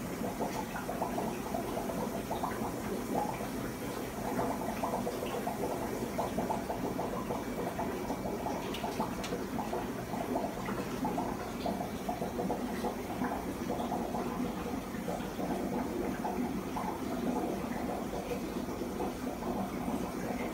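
Aquarium air stones bubbling steadily, a constant watery babble of bubbles rising and breaking at the surface.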